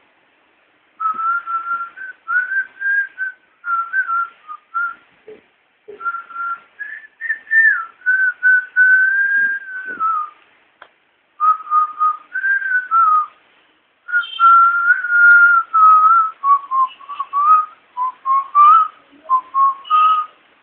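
A person whistling a tune by mouth, in short phrases with brief gaps, the pitch wandering up and down; one longer held note near the middle slides down at its end.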